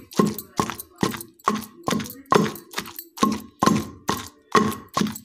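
A pestle pounding chutney in a stone mortar, with strikes coming steadily about two a second. It is coarsely crushing fresh onion pieces into the ground ridge gourd peel paste.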